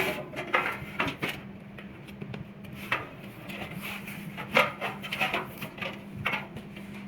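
Scattered clicks, knocks and short scrapes of metal parts and tools being handled while a hose reel box is taken apart. The sharpest knocks come right at the start and about halfway through, over a steady low hum.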